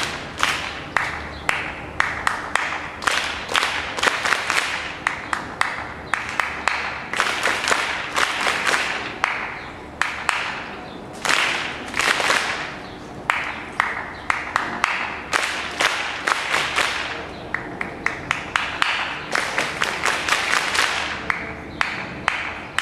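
A group of children clapping rhythms together: sharp claps in unison alternate with stretches of dense, ragged clapping.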